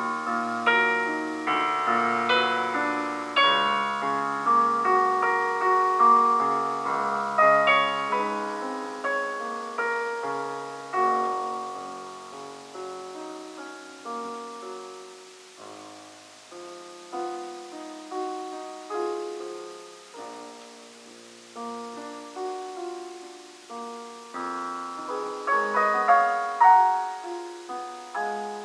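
Solo piano playing a passage of chords and melody. It is louder at the start, softer through the middle and swells again near the end.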